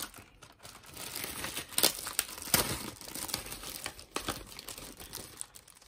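Clear plastic packaging bags crinkling and rustling as they are handled, in irregular crackles that die away near the end.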